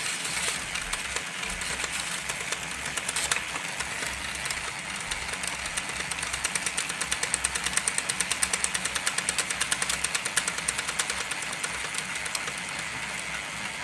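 Cordless impact driver running at its lowest speed to turn a filament respooler. Its motor whirs steadily, with a fast, even clicking through the middle few seconds.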